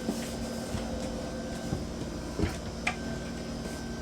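Wooden cabin-sole hatch over the bilge sump being lifted: a few knocks and clunks, the two loudest about two and a half and three seconds in, over a steady hum.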